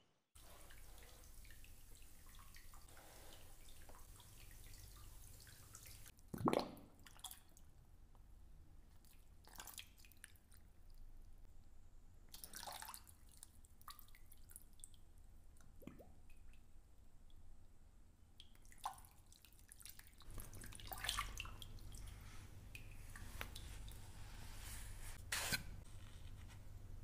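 Bath water dripping and splashing softly in scattered drops, the loudest a sharp splash about six seconds in, over a low steady hum that grows louder from about twenty seconds in.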